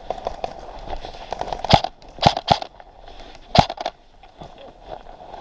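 Airsoft guns firing single shots: four sharp cracks spread over about two seconds, the last one on its own, over a faint crackle of movement.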